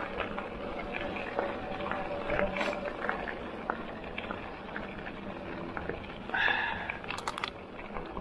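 Electric mountain bike rolling over a loose gravel trail: tyres crunching on gravel, with many small clicks and rattles from the stones and the bike. About six and a half seconds in there is a brief, louder squeal followed by a few sharp clicks.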